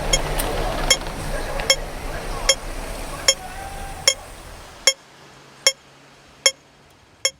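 Hong Kong pedestrian crossing audible signal ticking slowly, about one sharp tick every 0.8 s, the slow pace that marks the wait (don't cross) phase. Street noise behind it drops away about five seconds in.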